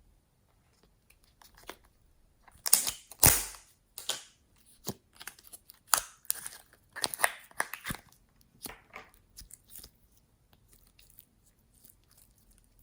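Hands squishing and stretching glossy slime: irregular wet pops, clicks and crackles with short silences between, loudest about three seconds in and thinning out after about ten seconds.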